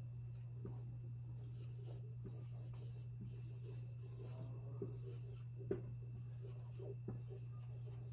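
Faint hand-writing sounds: light strokes and small taps, the sharpest about six seconds in, over a steady low hum.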